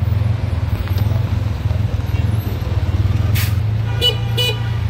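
Auto-rickshaw engine running with a steady low drone, a brief hiss about three seconds in, and two quick horn beeps near the end.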